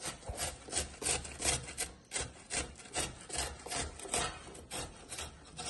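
A tomato being grated on a hand grater: an even run of rasping strokes, about three a second.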